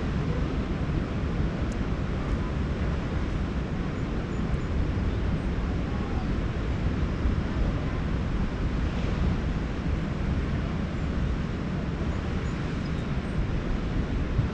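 Steady wind rumbling on the camera microphone, with ocean surf underneath.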